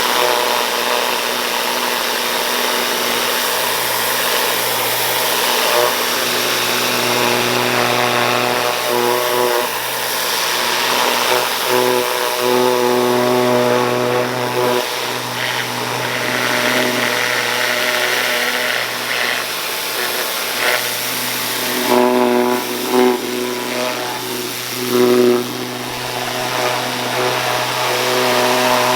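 A motor-driven tool or small engine running continuously, with a steady hum and a pitched note that comes and goes as the load changes, over a constant hiss.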